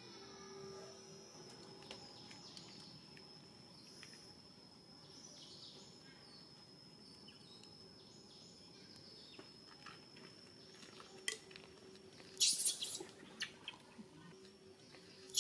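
Outdoor ambience with a steady, high, thin tone through most of it, then a few loud, sharp, high-pitched chirps about four-fifths of the way in and again at the very end.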